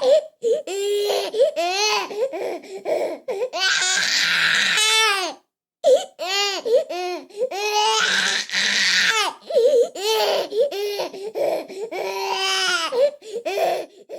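Infant crying: long high wails broken by short, choppy sobbing cries and catches of breath, with a brief pause about five and a half seconds in.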